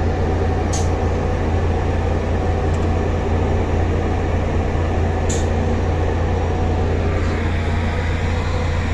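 Engine running steadily with a low, even drone, heard from inside the vehicle's closed cab.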